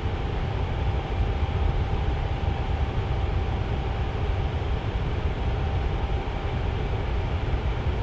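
Tower fan running steadily, a constant airy rushing with a deep low rumble and a faint steady hum tone.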